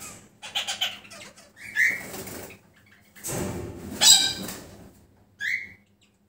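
Caged diamond doves: wings flap in a rustling burst about half a second in and in a louder one past the middle. Short, high calls come about two seconds in and again near the end.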